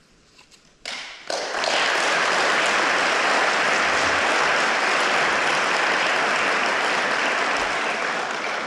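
Audience applause breaking out about a second in, after a short quiet at the close of the music, and holding steady before easing off slightly near the end.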